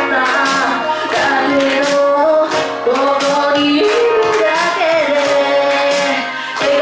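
A woman singing a pop melody into a handheld microphone over backing music, with long held notes that bend in pitch.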